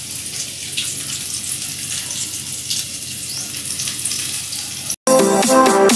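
A steady hiss with a few faint crackles. About five seconds in it cuts out briefly, and electronic dance music starts.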